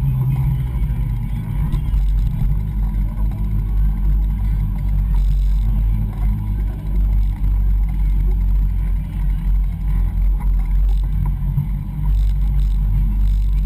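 Steady low rumble of wind and vibration buffeting the camera's microphone as it moves, with faint voices from people around.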